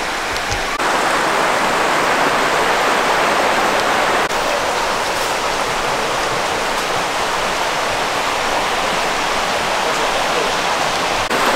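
Steady rushing of a rocky mountain creek, water flowing and splashing over stones in an even hiss.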